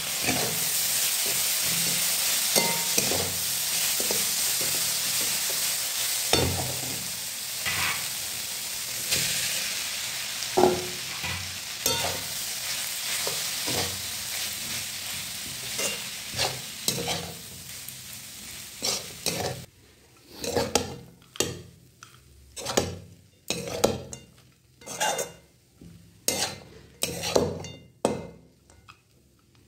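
Vegetables sizzling in oil in a wok while a spatula stirs and scrapes them. The sizzle slowly fades, then stops abruptly about two-thirds of the way through. After that only separate spatula scrapes against the pan are heard, about once a second, as poha (flattened rice) is mixed through.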